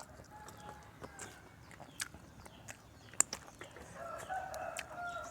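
Rooster crowing faintly, one long call about four seconds in, with a shorter, weaker call near the start and scattered light clicks.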